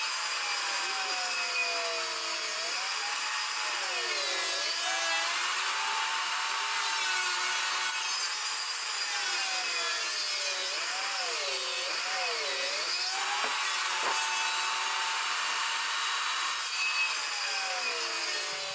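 Bosch table saw running and cutting wood. The motor's whine sags in pitch again and again as the blade is loaded in the cut, then climbs back.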